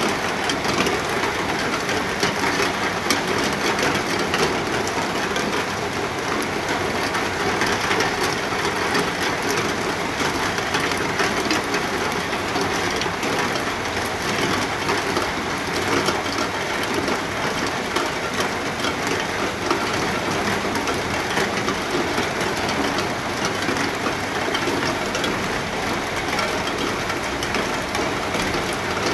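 Steady rain falling in a dense, even patter that does not let up.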